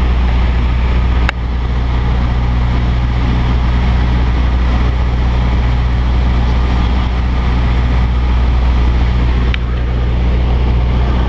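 Cessna 172's piston engine and propeller droning steadily in cruise, heard inside the cabin with a rush of airflow noise.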